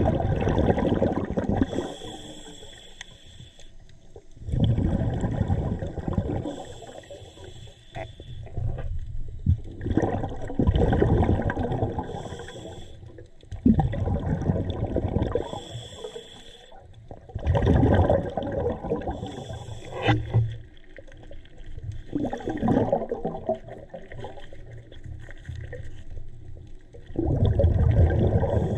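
Scuba diver breathing underwater through a regulator: a short hiss on each inhale, then a gurgling rush of exhaust bubbles on each exhale, repeating about every four to five seconds.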